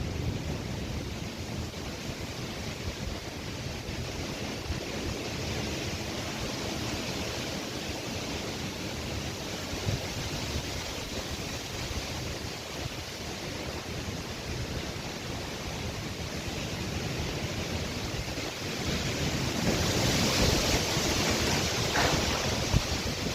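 Gusty storm wind rushing steadily, buffeting the microphone, swelling into a stronger gust near the end.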